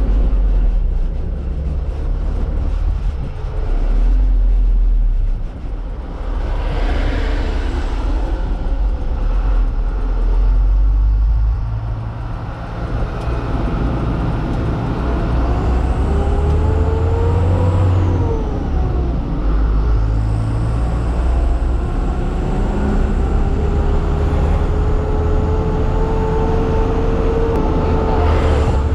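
Truck engine running on the move, with a heavy low rumble and a whine that rises, drops, then climbs slowly again as the revs change.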